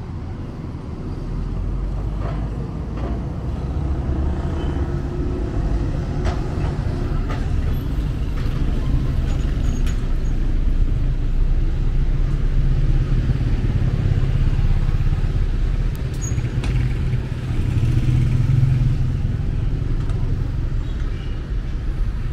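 City street traffic: cars, buses and motorcycles running and passing, a steady low rumble.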